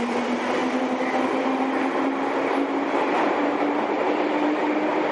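Victoria line 1967 Tube Stock train pulling out of an underground platform. Its motor hum rises slowly in pitch as it gathers speed, over a steady rushing noise from the wheels on the track.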